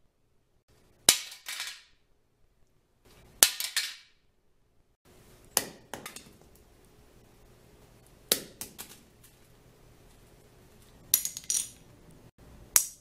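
A piece of tape, a garlic clove and a Lego brick are dropped in turn onto a hard concrete floor. Each lands with a sharp click followed by a few quick, fading bounce taps, and the plastic Lego hits ring brightly and high.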